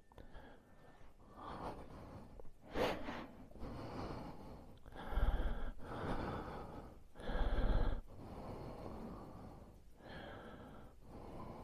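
A person breathing close to the microphone in irregular breaths. Two heavier breaths, about halfway through and again a couple of seconds later, buffet the mic with a low rumble.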